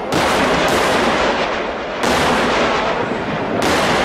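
Temple-festival vedikettu fireworks: massed firecrackers going off in rapid, overlapping succession, merging into one continuous loud barrage. Fresh surges of bangs set in several times.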